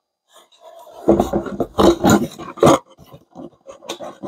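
Cardboard packaging and plastic wrap being handled on a wooden table: an irregular run of scrapes, rustles and knocks starting about a second in.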